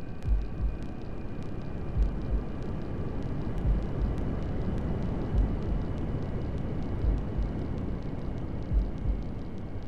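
Fetal heartbeat sound, a low double thump (lub-dub) repeating about every 1.7 seconds, six beats in all, over a steady white-noise hiss.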